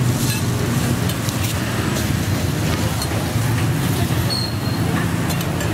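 Steady rumble of road traffic, with engines running, and a few light clicks.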